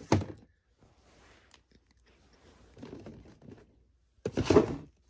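Small plastic toys being handled and moved: a sharp click just after the start, soft rustling, then a louder rustling clatter about four and a half seconds in.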